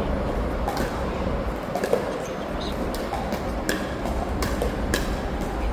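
Pickleball paddles striking a plastic pickleball in a soft dink rally: several short, sharp pops at uneven intervals, about a second apart, over a steady background rumble.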